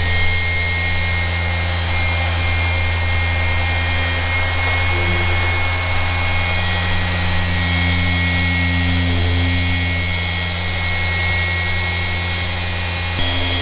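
Cordless mini rotary polisher (Flex PXE) running steadily with a small pad against car paint, a constant electric motor whine over a low hum, as a scratch in the door's clear coat is polished out.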